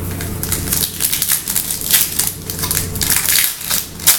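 Silver foil trading-card pack wrapper crinkled by hand as it is opened, an irregular crackling with the sharpest crinkles about two seconds in and just before the end.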